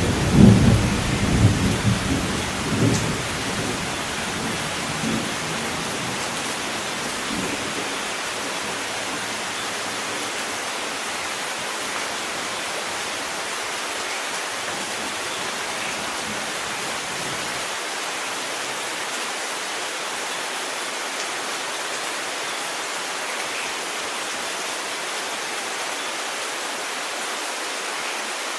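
Steady rain hiss, with a roll of thunder rumbling in the first few seconds and fading away, leaving only the rain.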